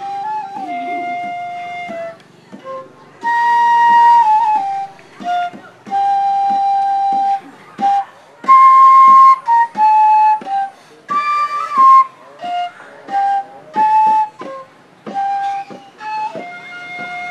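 Instrumental music: a single melody line of held notes, in short phrases with brief gaps between them.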